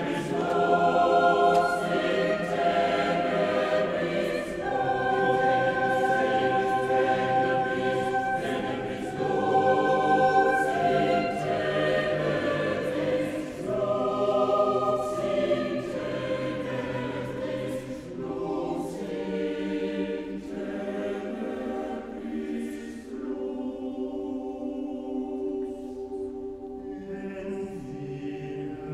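Choir singing slow, sustained chords that change every few seconds. About two-thirds of the way through, the lowest voices drop out and the sound thins to the upper parts, growing softer, before a lower part comes back in near the end.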